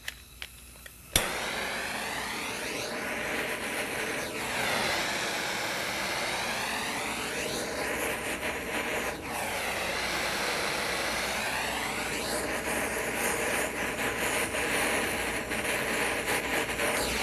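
Blowtorch flame hissing steadily, starting abruptly about a second in, with slow sweeping changes in tone, as its jet is played over a stainless steel pot of fuel that catches fire and burns.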